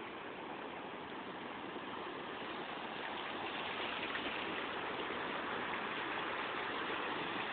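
Steady rushing noise, growing a little louder about three seconds in.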